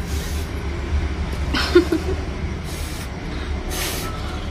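A child blowing short puffs of breath at the flower on top of a toy pen, about four puffs a second or so apart, over a steady low rumble.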